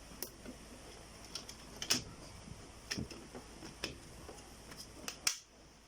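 Sharp light clicks and taps of small plastic parts being handled, about nine scattered irregularly, over a faint steady hiss.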